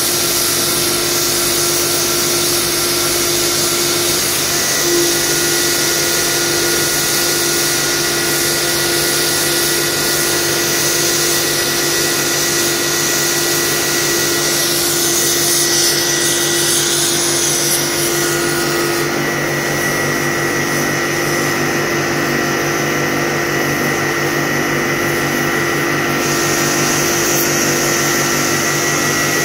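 Oxy-fuel gas cutting torch cutting through thick steel plate, its cutting jet giving a loud, steady hiss.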